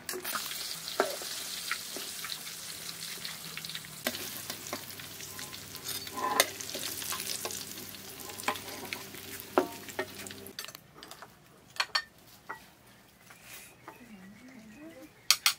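Hot food sizzling, a dense crackling hiss with a ladle stirring and clinking in a metal pot; it stops about ten and a half seconds in. After that, a few sharp clinks of spoons against plates and bowls, the loudest near the end.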